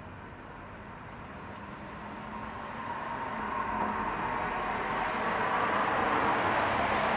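A train approaching through the station, its running noise growing steadily louder and levelling off near the end.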